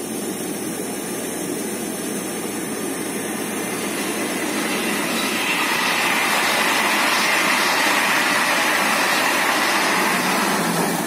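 Passenger train passing: Corail coaches rolling by on the rails with a steady rumble, then the BB 7200 electric locomotive pushing at the rear goes past in the second half, adding a higher-pitched hum.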